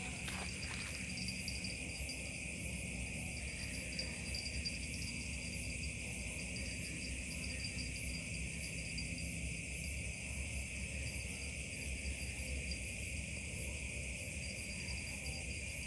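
Night insects chirring steadily in several high-pitched layers, one of them a fast pulsing trill.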